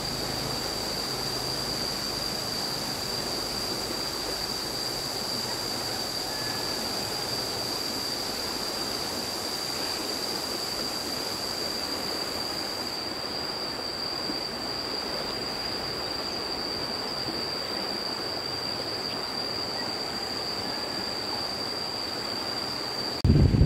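Steady rushing of a swollen, fast-flowing river, with a thin, steady high whine over it. Near the end it cuts sharply to a much louder low rumble of wind buffeting the microphone.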